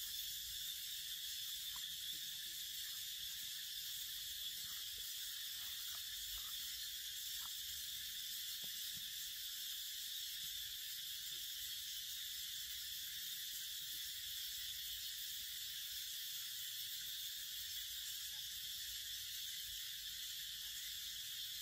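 Steady high-pitched hiss of an insect chorus, unbroken and even throughout.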